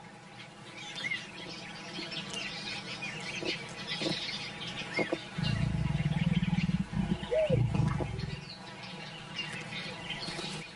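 A leopard cub growling low for about three seconds, starting about five and a half seconds in, with a short cry near the end of the growl, as it play-attacks its mother's tail. Birds chirp throughout.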